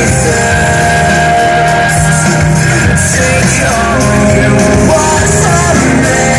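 Loud song with a singing voice over a full band accompaniment, played through PA loudspeakers as the backing track for a stage mime.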